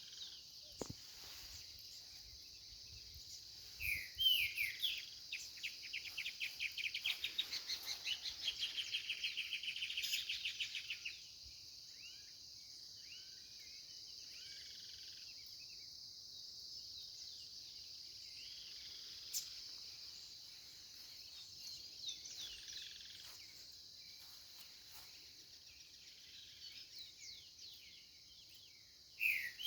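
Songbirds calling over a steady high insect buzz. A couple of sliding calls about four seconds in lead into a loud, fast run of repeated notes lasting about five seconds, and scattered chirps follow.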